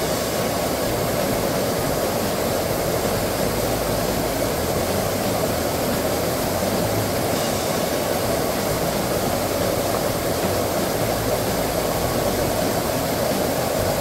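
Mountain stream water rushing steadily over rocks, an even, unbroken rush close to the microphone.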